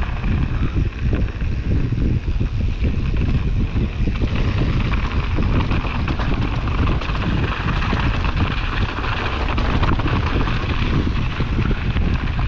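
Wind buffeting the camera microphone over a steady low rumble and the rattle of a Santa Cruz Hightower mountain bike rolling down a trail, with a hiss that grows stronger about four seconds in.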